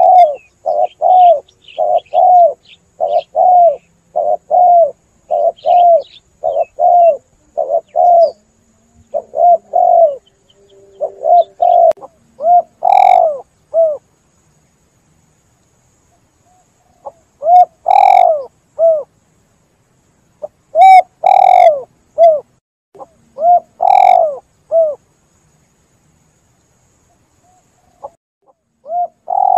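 Spotted dove (tekukur) cooing: a fast run of short repeated coos, then after a pause of a few seconds several separate short phrases of coos. Faint chirps of a small bird sit under the coos at first.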